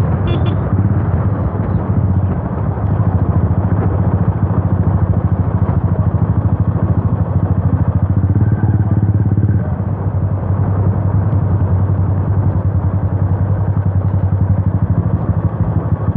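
Yamaha FZ V2's single-cylinder engine running loud through an Akrapovic exhaust with the dB killer removed, at a steady pace while riding.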